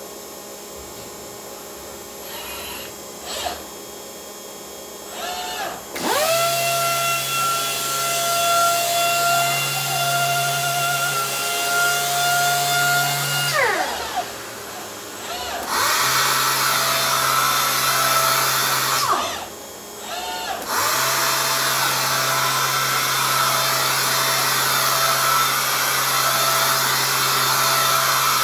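Orbital sander on a six-axis robot arm: after a few faint short whirs of the arm moving, the sander starts about six seconds in, spinning up to a steady whine, then winds down with a falling pitch. It starts again and runs on a wooden slab with a hiss of sanding under the whine, with a brief pause in the middle.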